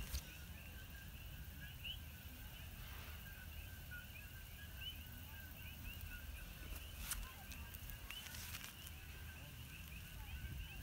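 A dense night chorus of coqui frogs, their short two-note chirps overlapping without pause. There is a few sharp clicks, the clearest about seven seconds in, over a faint low rumble.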